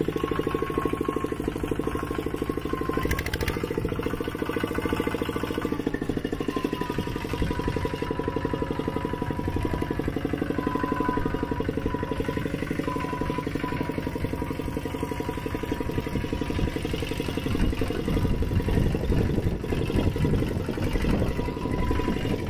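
Mini tractor engines running steadily with a rapid, even firing beat, growing a little louder in the last few seconds.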